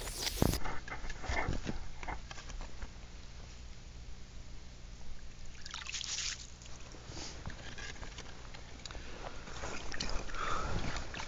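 An ice auger's drilling hiss cuts off within the first second. Then an ice skimmer scrapes and sloshes slush and ice chips out of a freshly drilled hole in lake ice, with a louder scoop about six seconds in and another near the end.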